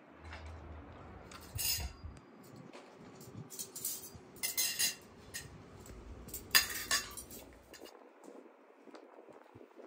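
Ceramic plates, forks and spoons being set down on a plastic tablecloth, clinking and clattering in about four short bursts.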